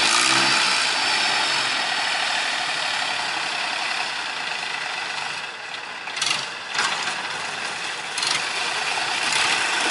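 Long-tail boat's diesel car engine running steadily, with a few sharp knocks around six to eight seconds in.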